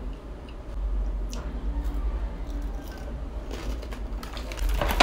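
Clear plastic bag of crispy rice being handled and shaken: scattered crinkles of the plastic and light rattling of the dry rice pieces, with a louder burst of crinkling near the end. A low steady hum runs underneath.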